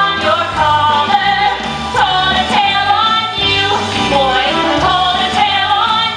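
Women singing a 1950s-style pop song into stage microphones over instrumental backing with a steady bass line.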